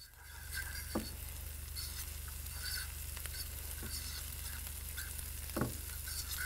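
Diced onion, garlic and dried herbs sizzling in oil in a skillet with a steady hiss, while a utensil stirs them around the pan, with a few faint scrapes.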